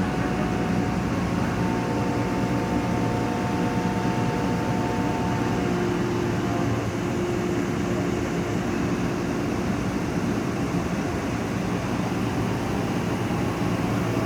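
Mobile crane's engine running steadily under work, with a faint steady whine held for a few seconds about two seconds in.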